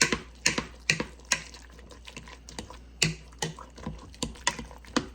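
A utensil knocking and clicking against a mixing bowl while stirring, in sharp taps about two a second with a short pause midway.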